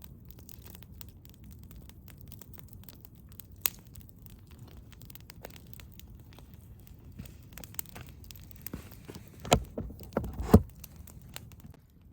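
Campfire crackling, with scattered sharp pops over a low rumble and a few louder knocks near the end.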